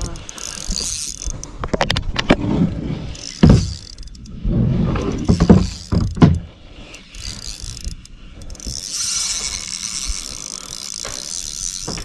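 Spinning reel being cranked to reel in a hooked fish, its gears whirring. Loud low thumps and rumbling come between about two and six seconds in.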